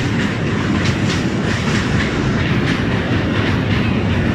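Passenger train running across a steel truss bridge, heard from an open doorway: a steady rumble of wheels on rails with light, irregular clicks and rattles.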